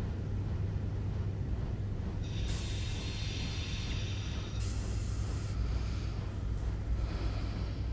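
Animated-film soundtrack: a steady low hum of ambience, with two short bursts of hissing, the first about two and a half seconds in and the second about four and a half seconds in, and a fainter hiss near the end.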